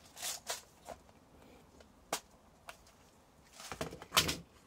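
Scattered small clicks and taps from handling a wire and a small metal U-crimp terminal, with a louder cluster of taps and rustling about four seconds in.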